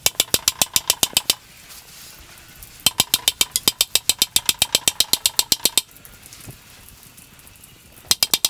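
Rapid light hammer taps on a hot steel wagon-wheel tire, about nine a second in three runs, with a faint ringing of the steel. The tapping jars the tire as it cools and shrinks onto the wooden wheel, helping set the joints tight.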